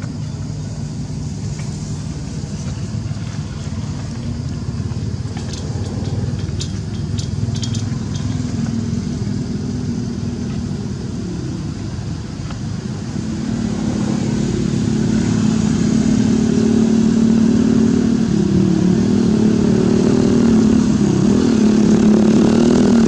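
A motor vehicle's engine running, growing louder from about halfway through as it comes closer, its pitch wavering near the end.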